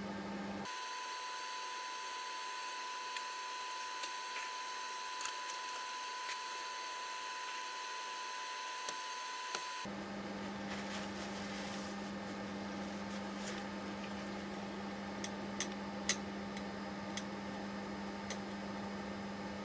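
Steady hiss and low electrical hum of the recording's background. For the first half this is replaced by a thin steady high tone with no hum, apparently an edited-in section. A few faint, sharp metallic clicks are heard throughout.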